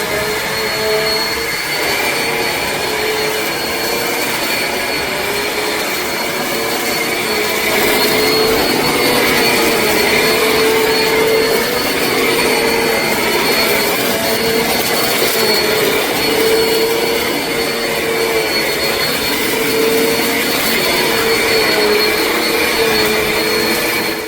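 Eureka NEU10AE5 bagless upright vacuum cleaner running steadily at full power, a rushing airflow hiss with a steady hum and a thin high whine; the hum wavers slightly as it works. It grows a little louder about a third of the way in.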